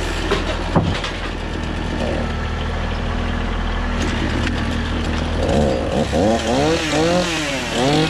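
Mahindra 4010 HST compact tractor's diesel engine running as the loader tractor reverses and drives off, a steady low drone with a few knocks. In the second half a rising-and-falling pitched sound joins in.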